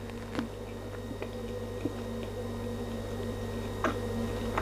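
Faint clicks and squishes of someone taking a bite of food and chewing, over a steady low hum.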